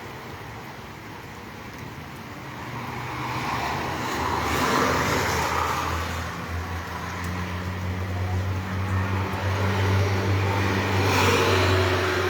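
Road traffic: vehicles passing one after another, swelling loudest about a third of the way in and again near the end, over a steady low engine hum.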